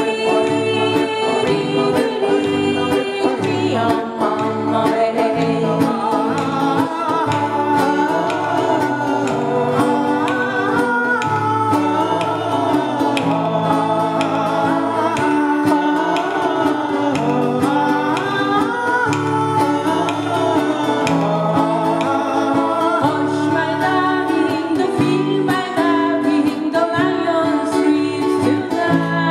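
Live acoustic folk band: several acoustic guitars strummed in a steady rhythm while the group sings together into microphones.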